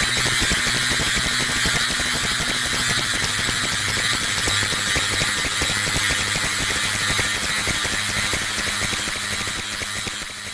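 Modular synthesizer noise drone from a 4ms Ensemble Oscillator run through a Doepfer ring modulator: a dense, crackling, buzzing hiss over a few steady low hum tones, beginning to fade out near the end.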